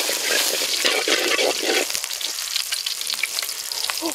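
Lemongrass, ginger and leaves sizzling in hot oil in a wok, a steady frying hiss. For the first couple of seconds a ladle stirs and scrapes them around the pan.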